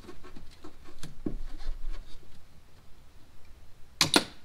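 Windshield wiper arm on a Chevy Tahoe being worked loose from its pivot by hand: light scraping and small clicks, then two sharp knocks close together about four seconds in.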